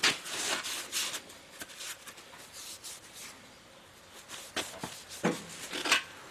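Cloth rag rubbing and wiping valve grinding compound off a freshly lapped valve and its seat in a Willys L-head engine block, in short scrubbing strokes for the first couple of seconds. A few light metal clicks near the end as the valve is lifted out.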